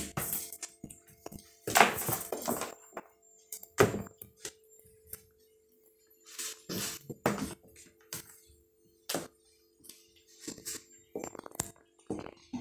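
A cat batting, pouncing on and dragging a raw chicken foot across a wooden floor: irregular knocks, thuds and short scrapes at uneven intervals, over a faint steady hum.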